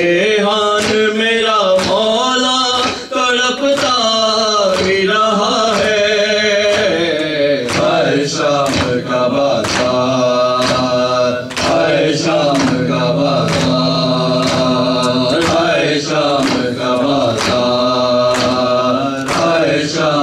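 Men's voices chanting an Urdu noha, a Muharram lament led by a reciter on a microphone. Rhythmic chest-beating (matam) cuts through it as sharp slaps about one and a half times a second.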